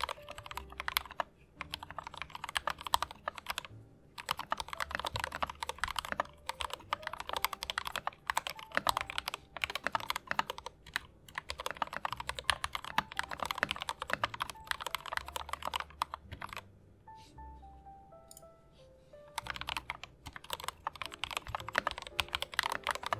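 Typing on an LTC Nimbleback mechanical keyboard: fast runs of key clacks in bursts, pausing for about three seconds in the later part, over soft background music.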